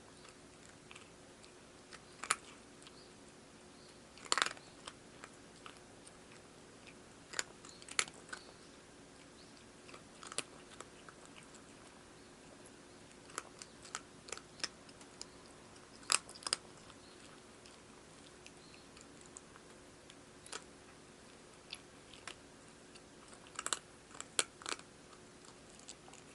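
A cat crunching dry food: sharp, scattered crunches every second or few, sometimes two or three in quick succession.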